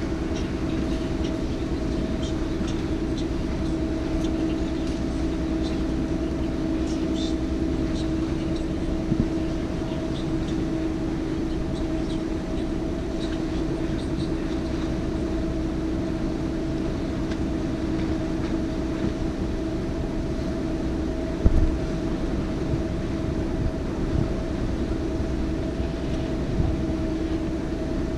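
Canal tour boat's motor running steadily: a constant hum over a low rumble. One sharp knock comes about three-quarters of the way through.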